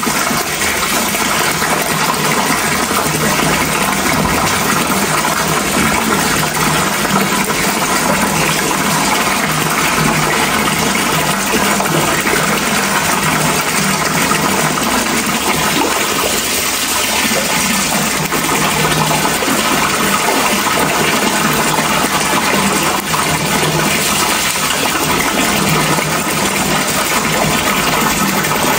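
Steady, loud rushing water, an even continuous wash of sound with no breaks.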